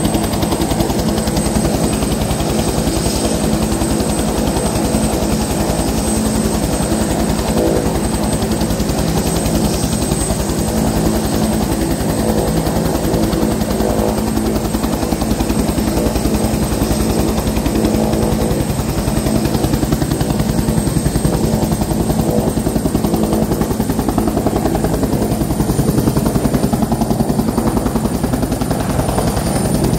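Bell 412 twin-turbine helicopter hovering low: the rapid, steady chop of its four-blade main rotor over the engine noise, with a thin high turbine whine that rises slightly in pitch over the second half.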